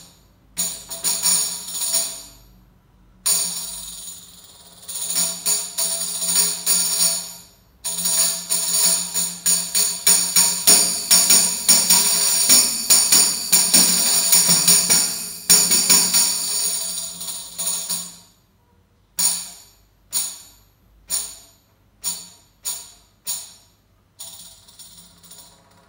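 Orchestral tambourine with a skin head, played by hand: short phrases of jingle strokes and brief rolls, then a long, dense roll of ringing jingles in the middle. Near the end come a series of separate single strokes, each with the jingles ringing briefly.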